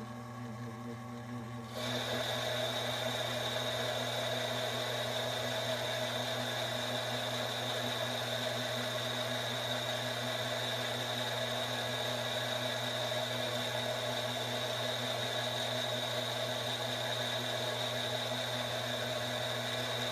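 Cowells 90 ME lathe running while a boring bar cuts an inside diameter. A steady low hum turns into a louder, steady cutting sound with a high whine about two seconds in.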